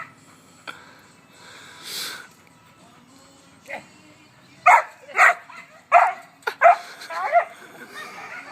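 A dog barks about five times in quick succession about halfway in, ending with a short wavering whine.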